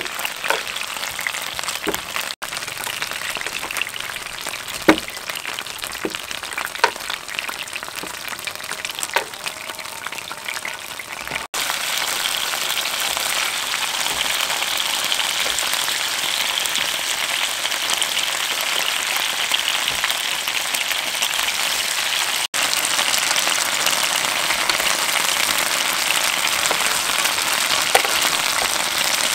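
Chicken drumsticks frying in oil in a nonstick pan: a steady sizzle with scattered sharp pops of spattering oil, getting louder about twelve seconds in. A single click near the end.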